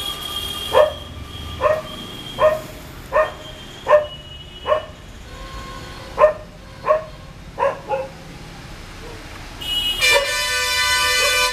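Bullmastiff puppy giving short, high yelping barks, about ten in a row, roughly one every 0.7 s. Near the end a vehicle horn sounds one long honk.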